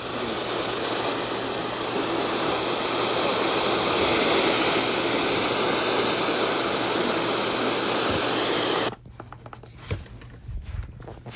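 Radio receiver static: a steady hiss from an untuned or faded signal on a software-defined radio. It cuts off suddenly about nine seconds in, leaving a few faint clicks.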